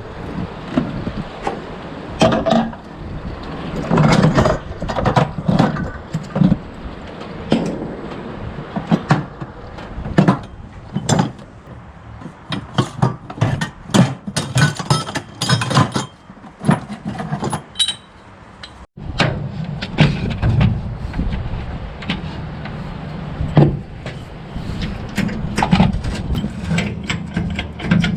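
Irregular knocks, clanks and scrapes of a jack and hand tools being worked on an Argo 8x8 amphibious vehicle to raise it for the front wheel.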